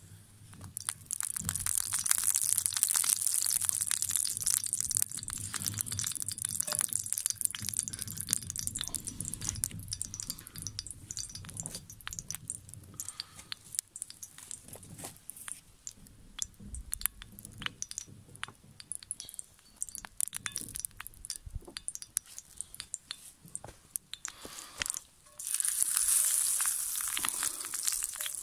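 Hot oil sizzling and spitting in a cast-iron skillet over a crackling wood fire, with many small pops throughout. The hiss is loudest in the first few seconds, dies down, and swells again sharply near the end as a slice of potato is laid into the oil.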